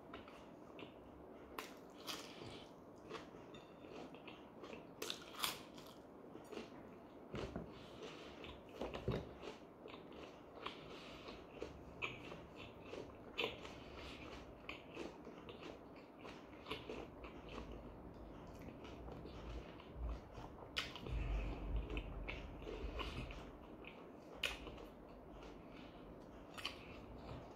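A person chewing a mouthful of pljeskavica in lepina flatbread, with many short clicks and smacks of the mouth. A low rumble joins in a little past two-thirds through.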